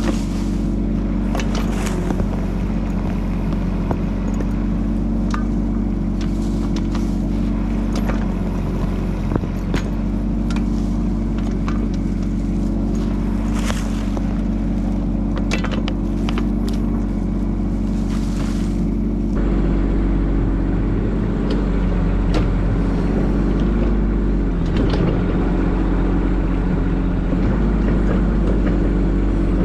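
Bobcat E10 mini excavator's diesel engine running steadily under hydraulic load while the bucket digs and dumps soil, with scattered scrapes and knocks of dirt and stones. About two-thirds of the way through the engine becomes louder and fuller, heard from the operator's seat.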